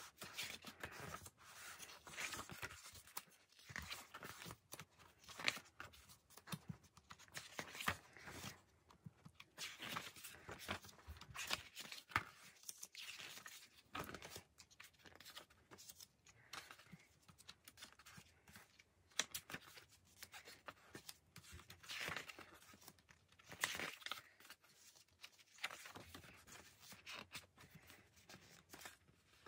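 Pages of a K-pop album's photo book being turned by hand, one after another: repeated soft paper swishes and rustles, a second or two apart.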